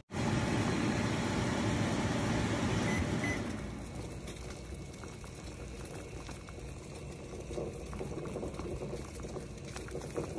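Pot of eggs at a rolling boil, water bubbling with fine crackling pops. A louder, steady rushing noise fills the first few seconds and drops away about three and a half seconds in.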